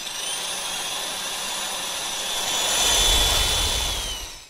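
Intro sound effect: a steady rushing noise with high whistling tones, swelling with a low rumble about three seconds in, then fading out quickly just before the end.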